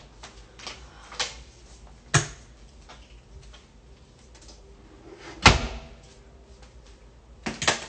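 Someone rummaging out of sight: a string of scattered knocks and clacks, like cupboard doors and household objects being handled, with the loudest, a heavier thump, about five and a half seconds in.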